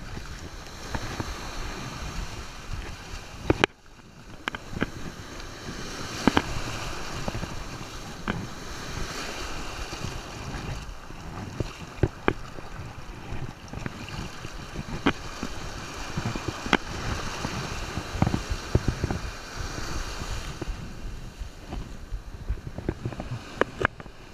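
Shallow surf washing and splashing around legs wading through it, with wind rumbling on the microphone and scattered sharp knocks.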